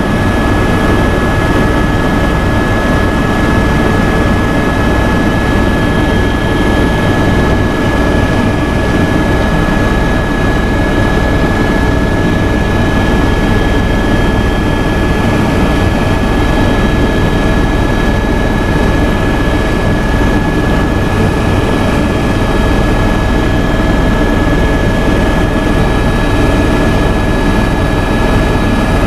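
Helicopter in cruising flight, heard from inside the cabin: a steady drone of engine and rotor, with a constant high whine over a low, evenly pulsing rotor beat.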